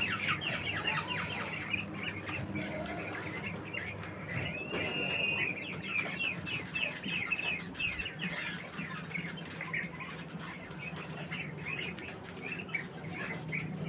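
Caged Japanese quail hens calling: a fast run of short, high chirps, with a couple of longer arching calls about five seconds in. The keeper takes these calls for the sound hens make before laying an egg.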